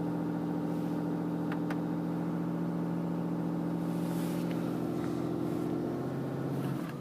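Diesel pickup truck engine idling steadily, heard from inside the closed cab as a low, even hum that drops slightly right at the end.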